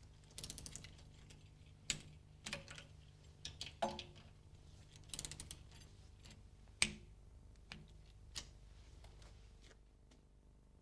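Hand socket ratchet clicking in two short rapid runs as it is worked on the engine's fixings, with scattered clinks and knocks of metal tools; the sharpest knock comes about seven seconds in.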